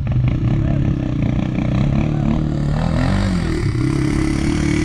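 Off-road vehicle's engine revving hard under load in sand. Its pitch wavers, dips and climbs again about three seconds in, and a hiss builds in the second half.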